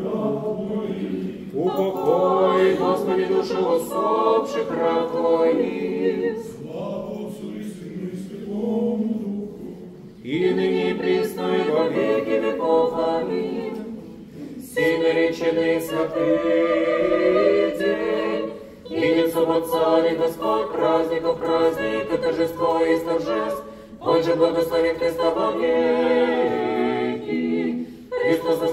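Church choir singing unaccompanied Orthodox chant of the memorial service (panikhida), several voices together in long phrases broken by short pauses.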